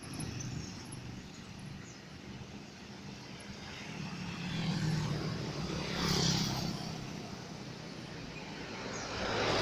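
Road traffic: a steady engine hum that swells from about four seconds in, with a vehicle passing close about six seconds in in a rush of noise.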